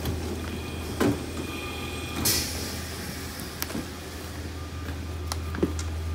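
Steady low hum of a standing passenger train's carriage, with a few knocks and footsteps on the carriage floor and a brief hiss about two seconds in.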